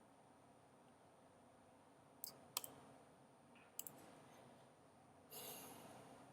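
Near-silent room tone with a few faint, scattered clicks from working a computer, and a brief soft rustle near the end.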